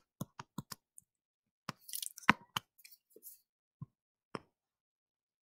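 Short clicks and taps of a stylus on a tablet screen during handwriting: a quick run of them in the first second, a scratchier cluster around two seconds, and a few single taps after.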